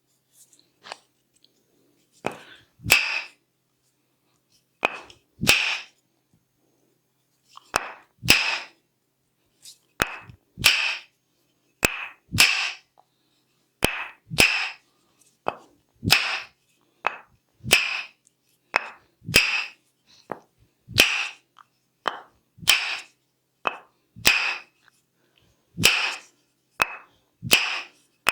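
Sharp, clap-like cracks of a percussive head massage, repeating every one and a half to two seconds, each strong strike often led by a lighter one.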